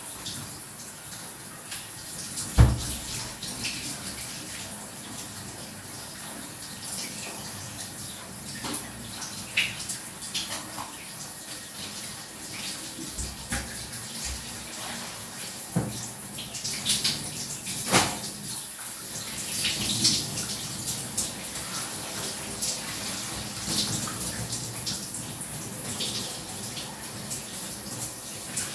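Shower water running: a steady spray of water with scattered splashes and sharp knocks, the loudest knock about two and a half seconds in.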